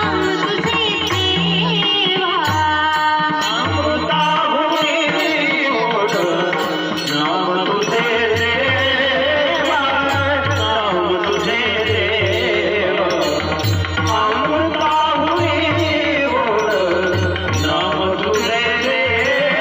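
A woman singing a Marathi abhang (devotional song) in a very high, powerful voice, accompanied by a hand drum keeping a steady beat and small cymbals ticking in time.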